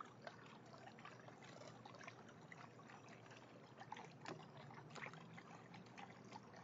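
Faint trickling and dripping of water in a half-barrel backyard fountain, with small irregular splashes as a raccoon paws and dabbles in the water.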